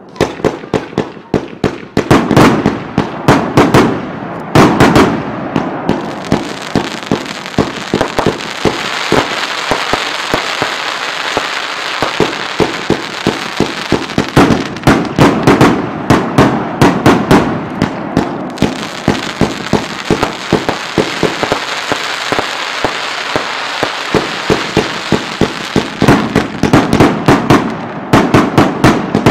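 Fireworks display at very close range to the launch tubes: rapid volleys of sharp launch and burst reports, several a second, with a steady hiss underneath from about six seconds in.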